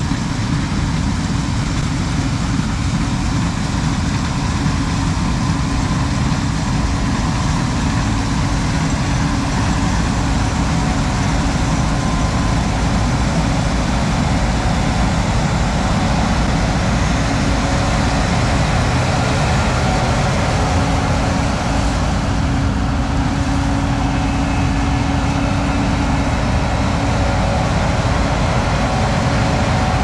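Combine harvester running steadily while cutting and threshing soybeans, a constant engine and machinery drone.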